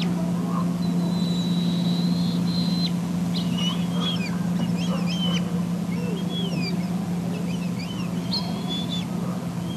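Eaglet's high, thin whistling food-begging calls: a long held note, then about three seconds in a run of short chirps that rise and fall in pitch, over a steady low hum.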